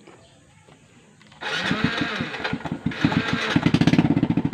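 A Suzuki underbone motorcycle's engine is started about a second and a half in: a brief crank, then it catches and runs, getting louder. It is noisy because its exhaust muffler has a hole in it, a sound the owner says people liken to a pump boat.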